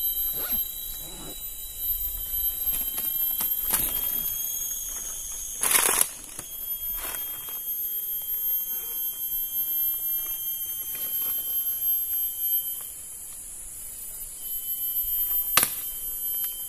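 Steady high-pitched drone of forest insects, with scattered rustling and twig snaps from movement among dry branches and leaves. A short, loud burst of rustling about six seconds in, and a sharp click near the end.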